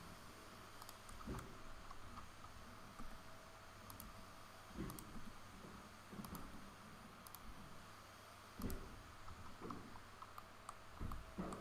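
Faint, scattered clicks of a computer mouse and keyboard keys, roughly one a second, over a low steady room hum.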